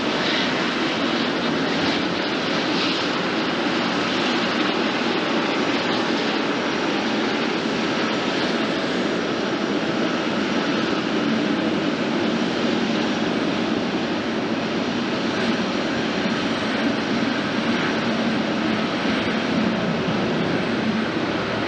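Boeing 777-300ER jet engines running with a steady, even noise that holds at one level throughout.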